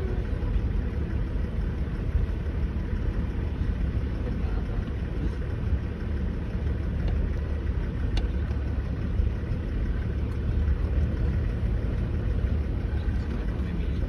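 Steady low rumble of a vehicle driving over a dirt track, heard from on board, with a few faint knocks.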